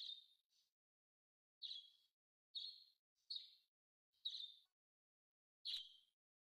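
A bird chirping: a series of short, high chirps, roughly one a second, with dead silence between them.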